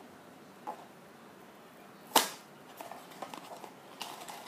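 A sharp tap about two seconds in, after a fainter one earlier, followed by a run of small clicks and rustles: small objects being handled and set down.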